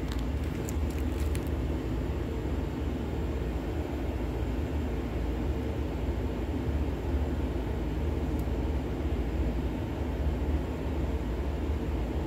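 A steady low rumble, with a few faint clicks in the first second or so.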